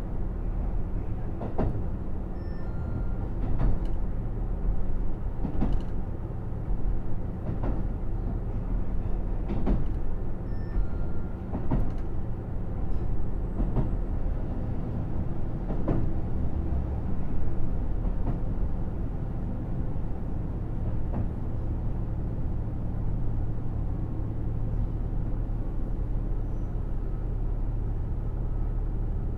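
Onboard running sound of a KiHa 75 diesel railcar at low speed: the wheels click over rail joints about every two seconds under a steady engine drone. The clicks stop a little past halfway, leaving only the drone.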